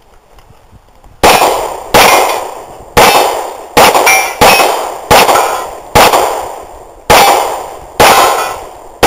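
Handgun shots fired at a steady pace: about ten shots roughly 0.7 to 1 second apart, starting about a second in, some followed by the brief ring of steel targets being hit.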